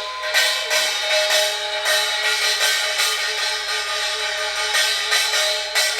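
Korean pungmul percussion band of gongs and drums playing a steady beat, about two strikes a second, over ringing metal tones, between the sung lines of a gosa song.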